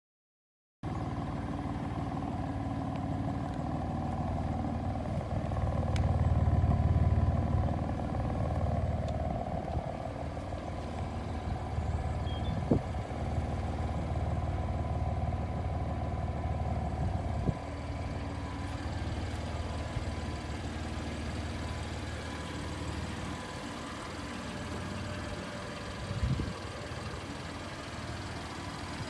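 BMW M4 F82's twin-turbo straight-six running at idle. It starts abruptly about a second in and swells louder for a couple of seconds around six to eight seconds in. A few sharp knocks break in, the sharpest about twelve seconds in.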